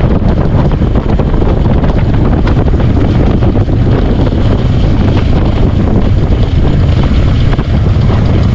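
Harley-Davidson motorcycle riding at road speed, the engine running under loud, steady wind noise buffeting the microphone.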